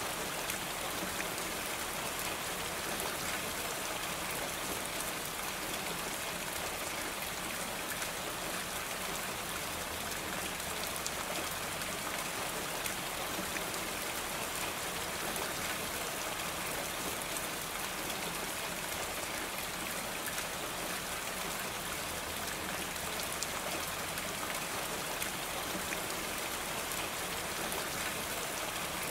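Steady rain falling on a roof: a dense, even wash of many small drops that keeps the same strength throughout.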